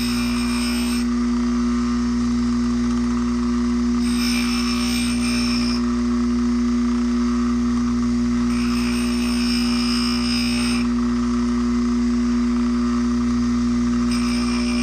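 Grinding-wheel motor of a chain sharpener running with a steady hum, while chainsaw teeth are ground against the wheel in passes of about two seconds, one every four to five seconds.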